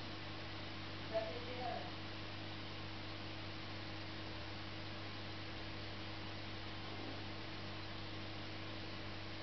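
Steady low electrical hum over a soft hiss, with one short click about a second in.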